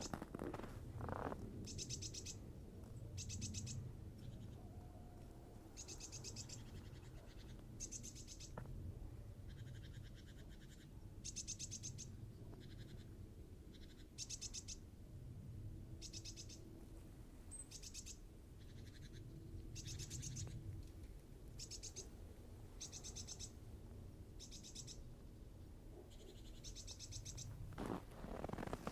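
A small songbird calling over and over, short high trilled notes every second or two, over a faint low rumble. Near the end, footsteps begin crunching in snow.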